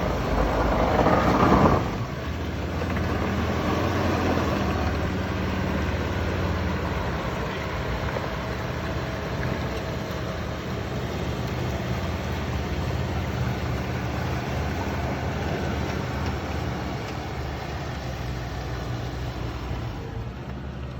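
An off-road vehicle's engine pulling under load as it climbs out of a creek crossing. It surges loudest for about the first two seconds, then settles into a steady drone.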